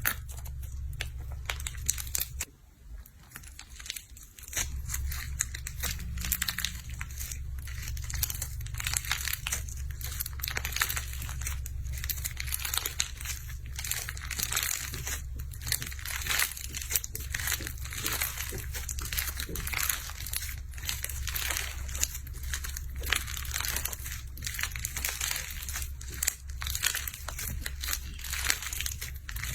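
Dense, continuous crackling and crinkling, over a steady low hum that drops out briefly about two and a half seconds in.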